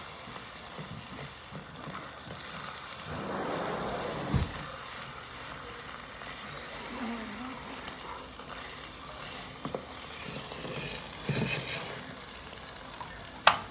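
Eggs beaten with milk sizzling in a frying pan, with a few knocks of a utensil and a sharp click near the end.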